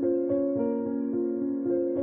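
Background music: a gentle melody of sustained notes, a new note coming in about three or four times a second.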